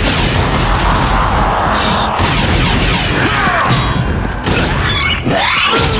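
Animated action-battle sound effects: dense explosions and blaster fire with crashing impacts, and sweeping cries that glide up and down in pitch about three seconds in and again near the end.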